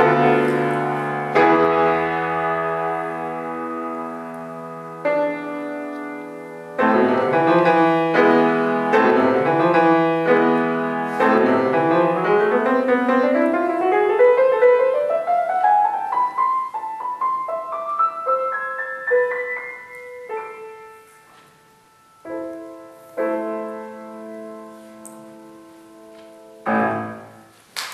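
Solo grand piano: loud sustained chords, then a long fast run climbing from low to high in the middle, followed by softer, spaced-out notes and closing chords.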